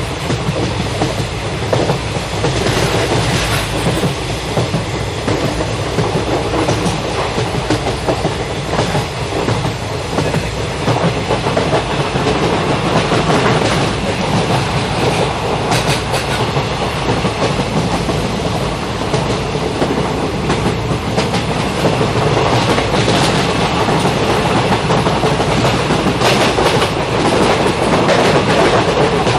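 Indian Railways goods train running, its wagon wheels clacking steadily and repeatedly over the rail joints.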